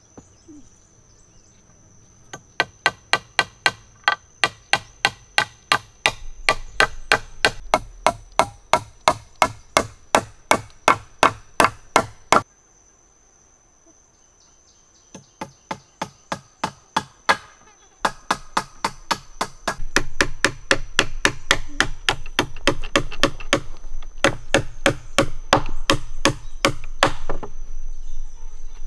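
A hammer striking wood in steady runs of about three blows a second, fixing split wooden slats onto a log platform frame, with two short pauses between runs.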